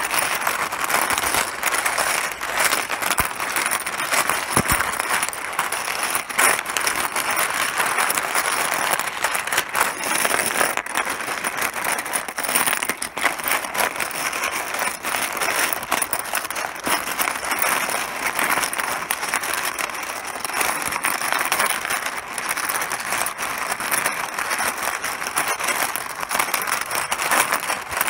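Mahjong tiles clattering against one another: a dense, continuous rattle of many small hard clicks.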